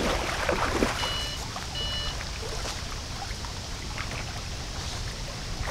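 Water splashing as a hooked common carp thrashes in a landing net in shallow lake water, with the splashes mostly in the first second, over a steady rumble of wind on the microphone.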